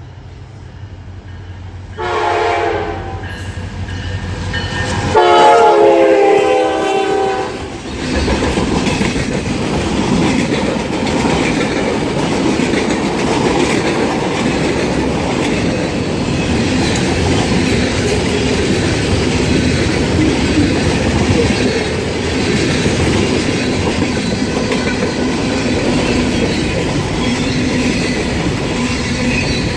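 Train horn sounding two blasts, the second longer and louder. It is followed by a train passing close by, a steady loud rumble with the clickety-clack of wheels over the rails.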